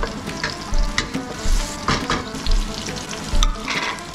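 Whole garlic cloves sizzling in oil over a high gas flame, with a wooden spoon stirring and clicking against a nonstick wok. Sliced onion goes into the pan near the end, and the sizzle grows louder.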